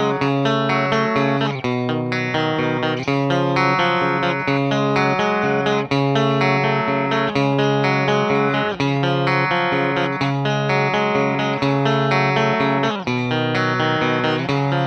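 Electric guitar, a swamp-ash Telecaster on its bridge pickup, playing strummed chords through a Fender Deluxe Reverb reissue amp miked with an SM57, the chords changing every second or so.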